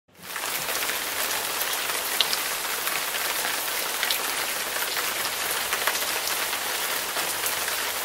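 Steady rain falling, an even hiss with scattered sharper ticks of individual drops; it fades in over the first half second.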